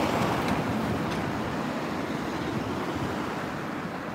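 Street traffic: a small car driving past close by, its engine and tyre noise fading gently as it moves away.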